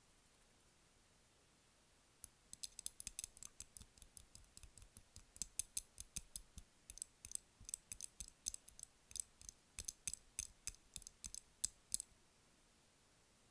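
Light, rapid tapping on a candle: irregular sharp clicks, several a second, starting about two seconds in and stopping near the end.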